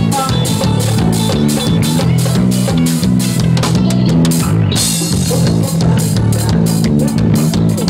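A band playing live on drum kit, bass and guitar: a steady drum beat under a moving bass line, with a cymbal crash about five seconds in.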